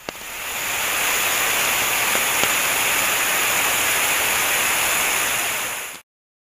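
Steady, loud static-like hiss that fades in over the first second and cuts off abruptly about six seconds in.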